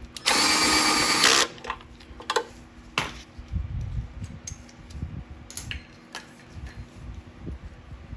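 Drill briefly spinning a mounting bolt in for about a second just after the start, then scattered clicks and knocks of parts and tools being handled.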